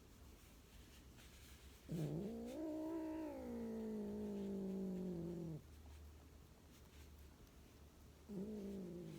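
Chinchilla Persian cat giving a long, low, drawn-out yowl that rises and then slowly sinks in pitch, followed near the end by a second, shorter yowl.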